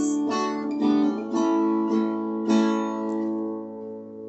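Acoustic guitar strumming chords, closing with a last chord left to ring out and fade.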